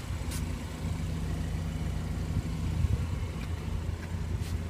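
Car engine idling: a steady low hum, with a faint click shortly after the start and another near the end.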